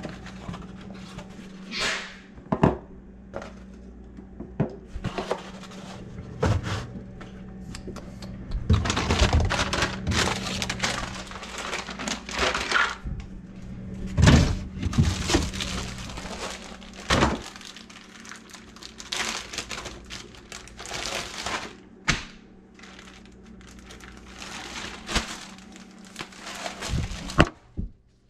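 Food and packages being handled in an open refrigerator: irregular clunks and knocks of items, shelves and drawers, an egg carton handled, and crinkling plastic packaging, with sharper knocks near the end. A steady low hum runs underneath.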